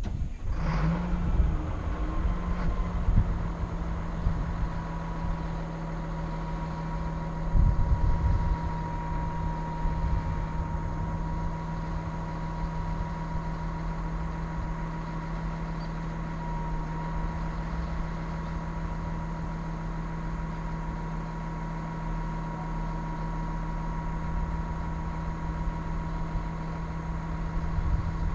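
A heavy wheel loader's diesel engine comes in about half a second in and settles into a steady idle with a whine above it. It gets louder briefly around three seconds and again around eight seconds.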